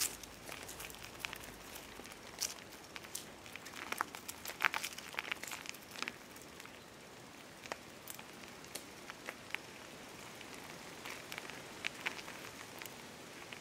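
Footsteps crunching on a rough gravelly lane: irregular crunches and clicks over a faint steady hiss, busiest about a third of the way in.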